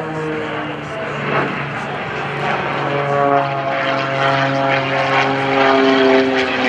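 MXS aerobatic monoplane's piston engine and propeller droning steadily during a steep dive, the pitch drifting slightly lower.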